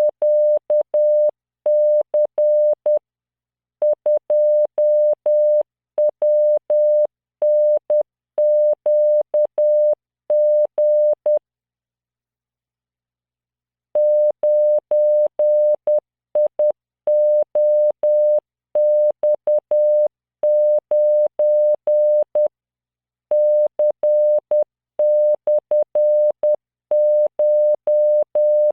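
Computer-generated Morse code at 10 words per minute: a steady 600 Hz tone keyed in dots and dashes, sending random five-character groups of letters, numbers and punctuation for code-reading practice. The keying stops for about two and a half seconds near the middle, then resumes.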